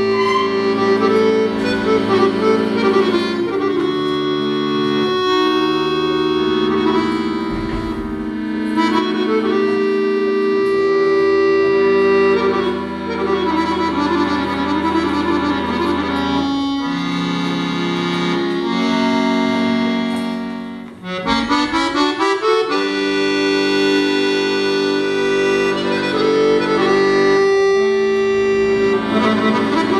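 Solo accordion playing a Vlach folk dance tune, melody over sustained chords and bass notes. The music drops briefly about two-thirds of the way through, then picks up again with a quick rising run.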